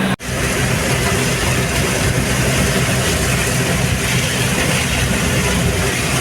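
Combine harvester's diesel engine and threshing machinery running steadily, a loud dense mechanical noise with a low engine hum underneath. The sound drops out for an instant just after the start, then picks up again.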